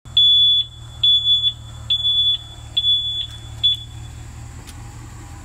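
Flatbed pickup truck's reverse alarm beeping five times, a high steady tone about once a second, the last beep cut short as it stops. The truck's engine runs low underneath.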